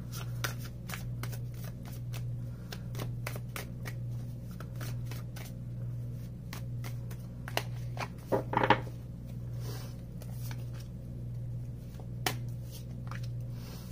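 A tarot deck being shuffled by hand: a run of quick, irregular clicks and flicks of card stock, with a louder flurry a little past the middle.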